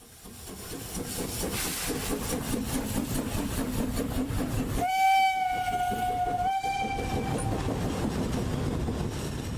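A train running with a rhythmic clatter. Its whistle sounds about five seconds in: one long blast, then a shorter second one.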